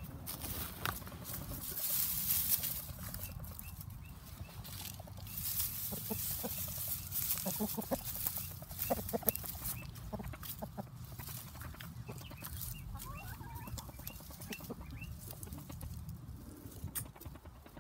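A rooster clucking in short low notes, mostly in the middle of the stretch, while scratching and rustling through dry grass.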